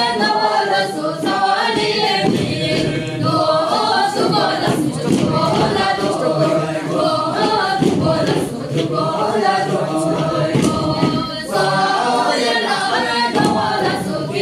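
A group of men and women singing a Bhutanese circle-dance song together, unaccompanied, in phrases with brief breaks between verses.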